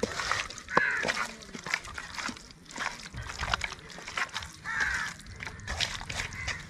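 Wet squelching and smacking of a hand kneading chicken pieces in a thick masala marinade in a steel bowl, working the spice paste into the meat.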